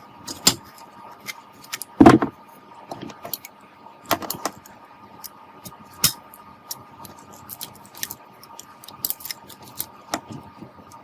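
Clicks, clinks and knocks of small metal parts and tools being handled during work on an electric fan. There is a loud clatter about two seconds in and another around four seconds, over a faint steady tone.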